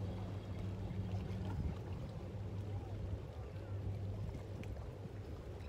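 A steady low drone with an even hiss of wind and water over it.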